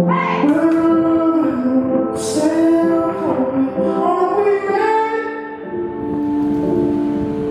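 Music soundtrack: a woman singing a slow melody over sustained held chords.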